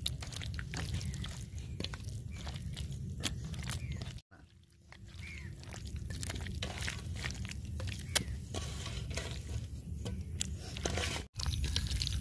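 Wet squelching and sticky clicks of a hand working raw queen fish strips through thick egg-and-flour masala batter in a steel bowl. The sound cuts out abruptly twice, about four seconds in and near the end.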